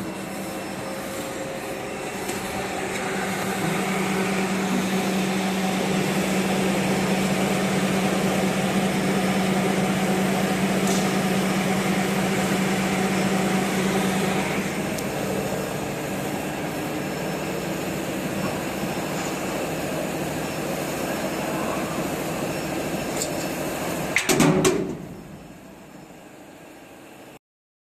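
Steady hum of a CNC turning and milling machine with a low steady tone, and a brief loud clatter about 24 seconds in. After the clatter the hum drops to a lower level.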